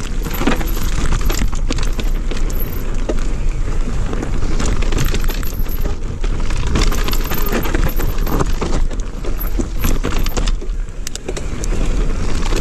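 Electric mountain bike riding fast down a dirt forest singletrack: tyres rumbling on the ground while the frame, chain and components rattle and clatter over the bumps, with a steady low wind rumble on the handlebar-mounted microphone.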